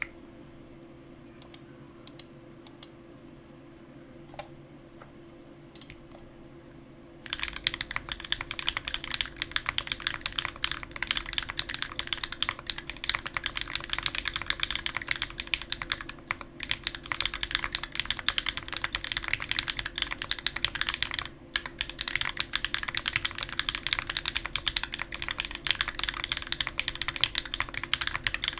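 Typing on an MGA Standard custom mechanical keyboard with a carbon fibre plate, shelf-liner dampening and switches built from Cream stems, Gateron Black bottom housings, Gateron Milky tops and Ink springs. A few single keystrokes come first, then steady fast typing starts about seven seconds in, with two short breaks.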